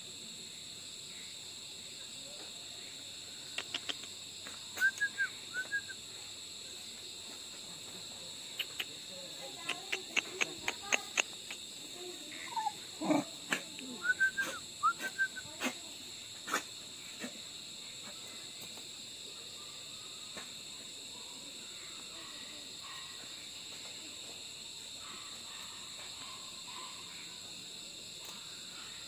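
Steady high chorus of night crickets. Between about 3 and 17 seconds in come scattered sharp clicks and a few short chirps.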